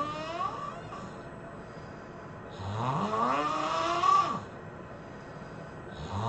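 A person snoring heavily: long, drawn-out pitched snores that rise in pitch through each breath, coming about every three and a half seconds. One snore tails off just after the start, a full one falls in the middle, and the next begins at the very end.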